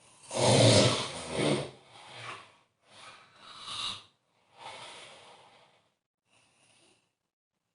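A sleeping person snoring: one loud rattling snore with a low buzz just after the start, then a few weaker snoring breaths that fade away.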